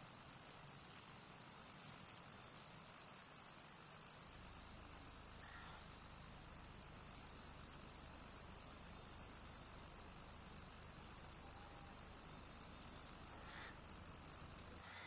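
Faint night-time insect chorus: a steady, high-pitched trill, as of crickets, running unbroken.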